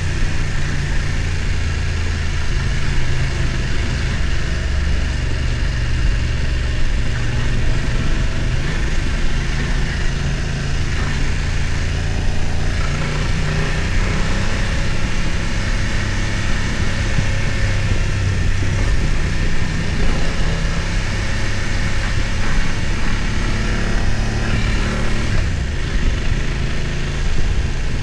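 BMW F900 XR motorcycle's parallel-twin engine running at low, fairly steady revs, with small rises and falls in pitch as the throttle changes.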